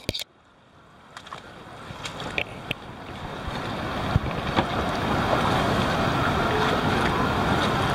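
Shallow river water rushing and flowing over rocks, with wind on the microphone. It starts almost silent and muffled, grows steadily louder over the first five seconds, then holds steady, with a few light knocks along the way.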